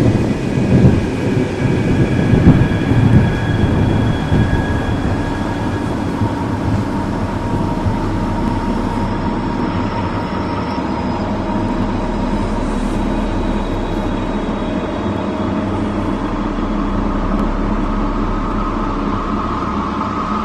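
A deep, steady rumbling roar with a few faint held tones above it, presented as the 'sounds from hell' recording said to come from a deep borehole in Siberia. The first few seconds are louder and rougher, with heavy knocks, before it settles into an even drone.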